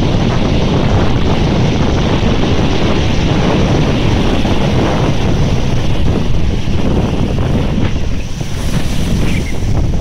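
Strong wind buffeting the microphone over storm surf breaking and washing up a shingle beach, a loud, steady rushing noise throughout.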